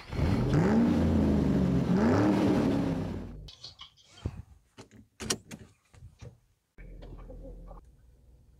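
A Nissan car's engine started with the key and running, its pitch rising and falling twice over about three seconds. After that comes a run of clicks and rattles as the seat belt is pulled across and buckled.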